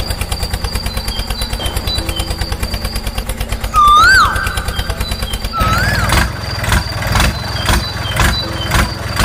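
Tractor engine sound chugging in a fast, even beat, turning heavier and uneven about halfway through. Over it come rising-and-falling bird whistles, the loudest about four seconds in.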